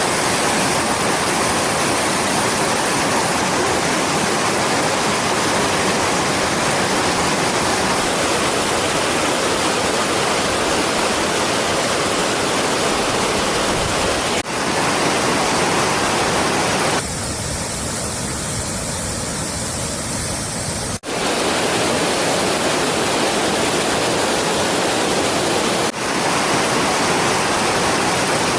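Waterfall: steady rushing of falling water, in several clips joined with abrupt cuts, the stretch in the middle a little quieter and thinner.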